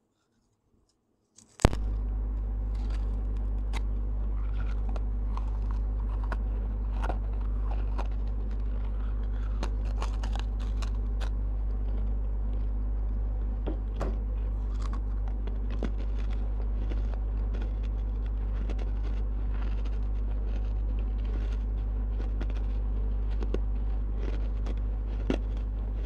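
Baked clay pot pieces being bitten and chewed close to a lavalier microphone: many crisp cracks and crackles over a steady low hum. Both begin after near silence, about one and a half seconds in.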